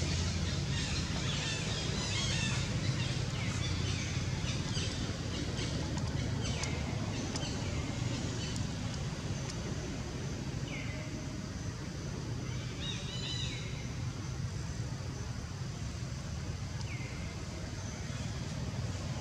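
Birds chirping now and then in short, scattered calls over a steady low rumble of outdoor background noise.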